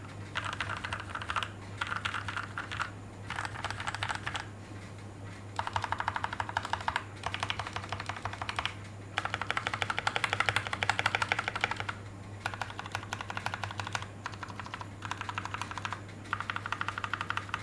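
Royal Kludge RK68 Plus mechanical keyboard with brown switches lubed with Krytox 205g0 and clipped, lubed stabilizers, typed on in rapid bursts of keystrokes with short pauses between: a run of letter keys, then, about five seconds in, repeated presses of the modifier keys.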